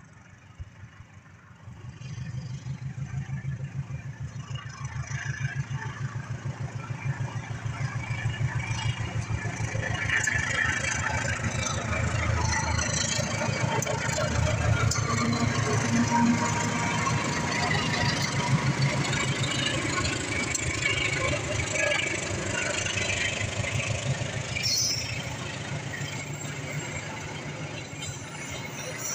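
A diesel-electric locomotive hauling a passenger train passes close by, its engine throbbing low and steady from about two seconds in. Behind it the coaches' wheels rumble along the rails with brief squeals.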